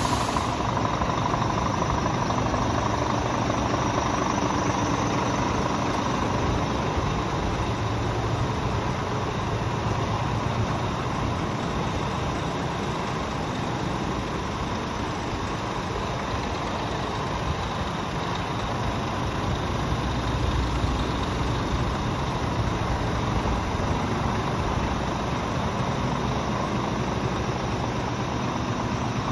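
Scania R450 Euro 6 tractor unit's 13-litre six-cylinder diesel idling steadily.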